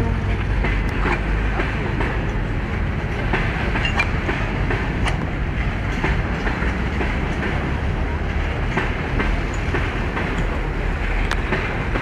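Railway sound: a steady low rumble with scattered metallic clanks and knocks at irregular moments.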